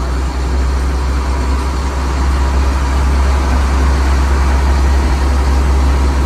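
Yard jockey terminal tractor's diesel engine running steadily with a deep, even drone.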